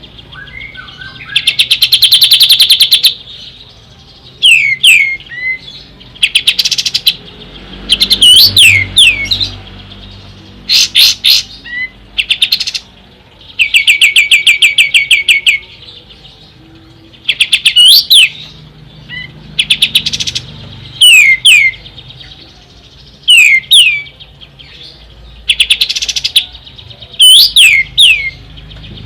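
A kapas tembak songbird singing loudly: rapid, evenly pulsed trills lasting one to two seconds alternate with quick whistled notes that sweep sharply downward, phrases repeating every second or two.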